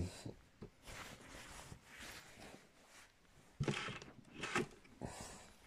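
Handling noise of objects being moved about and searched through, with several short clicks and knocks, a cluster of them a little after the middle.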